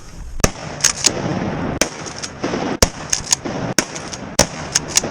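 Shotguns firing at ducks on the wing: a rapid string of sharp shots, about a dozen cracks in five seconds, some close together in pairs and threes.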